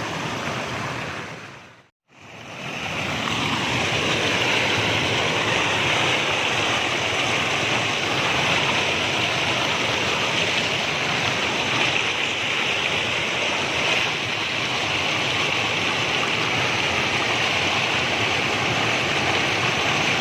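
Steady rushing of flowing water, a stream or river running past, cut off briefly to silence about two seconds in and then going on unchanged.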